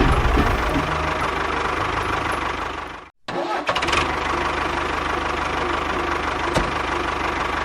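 A small engine running steadily, with a low even hum. It breaks off abruptly about three seconds in and picks up again at once.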